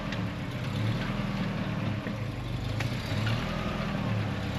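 Off-road 4x4 engine running at low revs, the sound rising and falling slightly as it works.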